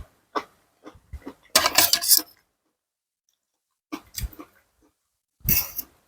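Close-miked eating of a seafood salad with fresh vegetables: small clicks of utensils and mouth sounds, then two short, loud, noisy bursts of chewing or slurping, one about a second and a half in and one near the end.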